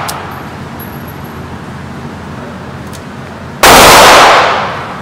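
A single loud handgun shot about three and a half seconds in, its echo dying away over a second or so off the walls of an indoor range; the tail of a previous shot fades out at the start.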